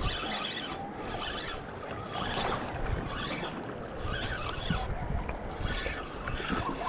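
Small waves lapping and wind on the microphone, with a Daiwa BG4000 spinning reel being cranked steadily as a small fish is reeled in.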